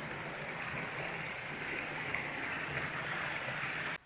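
Creek water rushing steadily over rocks, a constant hiss-like rush that cuts off suddenly near the end.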